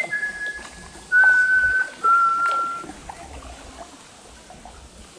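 A bird whistling a slow run of clear, pure notes, each held for under a second and each a step lower in pitch than the one before, fading out about three seconds in.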